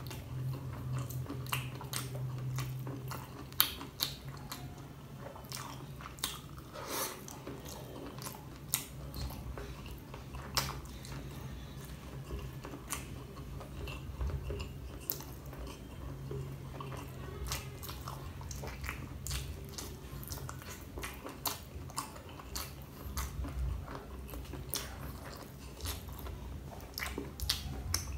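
Close-up chewing and biting of dynamite shrimp, fried shrimp pieces coated in a creamy spicy sauce, with many short sharp mouth clicks throughout. A faint low hum comes and goes underneath.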